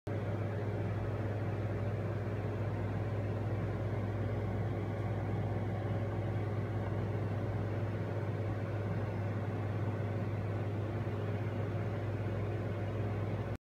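Steady low mechanical hum, unchanging throughout, that cuts in and cuts off abruptly.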